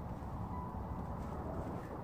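Wind blowing across the microphone: a steady low rush of noise.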